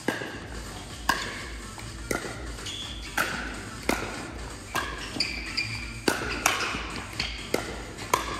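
Pickleball rally: sharp pops of paddles hitting the hollow plastic ball, mixed with the ball bouncing on the court, about one a second, each ringing briefly in the hall.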